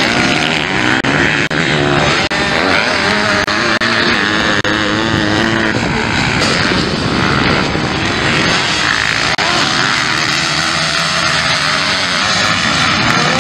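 Motocross dirt bikes racing on the track, several engines revving hard and rising and falling in pitch as the riders accelerate and shift.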